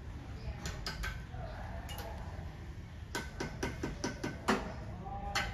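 Sharp, ringing taps of a metal hand tool striking brick or masonry: a few scattered ones, then a quick run of about eight about three seconds in.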